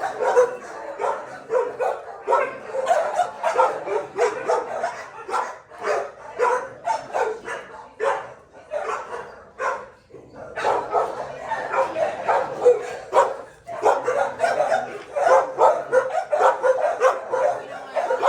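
Many shelter dogs barking in their kennels, a dense run of overlapping barks with a brief lull about ten seconds in.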